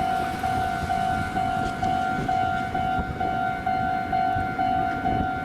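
Japanese railway level-crossing warning bell ringing its repeated 'kan-kan' tone, evenly at about two rings a second, with a low rumble underneath.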